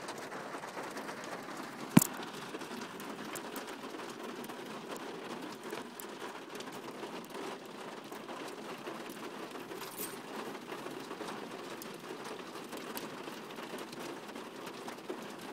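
Steady rain falling, with a single sharp click about two seconds in.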